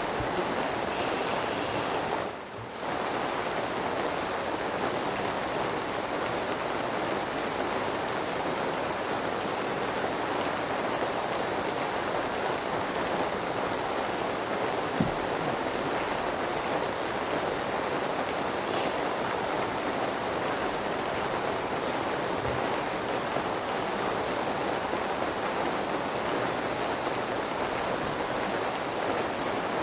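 Steady rain, an even hiss with no break in its level except a brief drop-out about two and a half seconds in and one sharp click around the middle.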